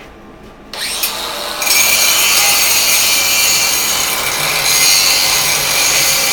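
Power grinder starting up, rising in pitch about a second in, then grinding with a loud, steady hiss.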